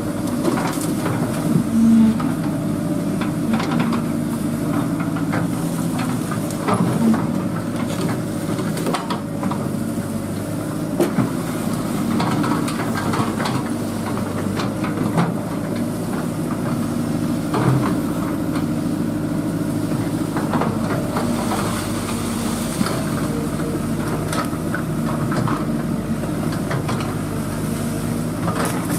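Excavator's diesel engine running steadily under work, with a few sharp knocks and clanks over it.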